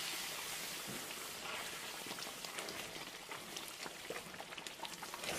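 Tomato and pepper stew base boiling hard in a large pan: steady bubbling with many fine crackles as it begins to splatter.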